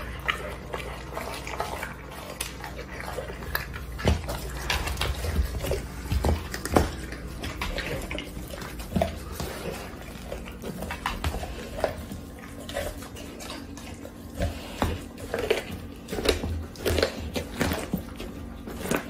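Pit bull-type dog chewing and gnawing a whole raw chicken: irregular crunches and clicks of teeth on meat and bone, coming more often near the end.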